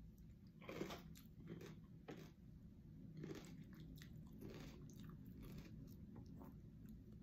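A person chewing a mouthful of crunchy vegetables, with a handful of faint, separate crunches as the food is bitten through.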